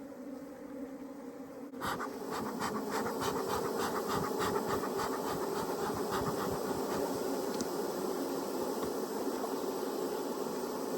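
Many honeybees buzzing in a steady hum. From about two seconds in, a run of quick scratchy clicks, about five a second, lasts several seconds over the buzzing.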